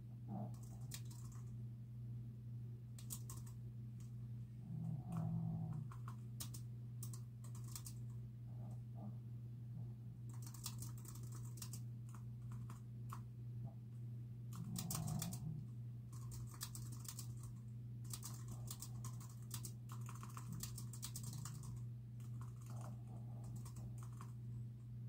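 Typing on a computer keyboard in irregular runs of a few seconds, with pauses between. A low steady hum lies underneath, and a separate low sound comes about five seconds in and again around fifteen seconds.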